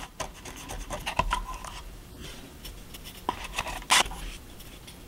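Small stiff paintbrush scrubbing against a stick of soft pastel chalk to pick up powder, then brushing the chalk onto a model brick wall: a string of short dry scratches and taps, with a louder stroke about four seconds in.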